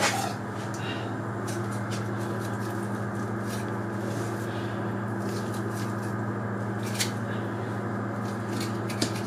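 A steady machine hum, with faint scrapes and a couple of small clicks as a boning knife works down beside the backbone of a deer carcass.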